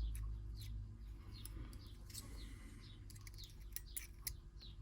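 Scattered short, high chirps that slide downward, like small birds, mixed with a few light clicks from small metal lock parts being handled on the bench.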